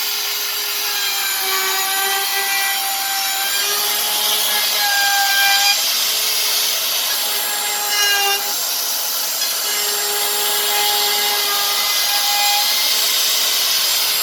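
Electric power tool working wood: a steady motor whine over a rasping hiss, the whine wavering and breaking off briefly a few times.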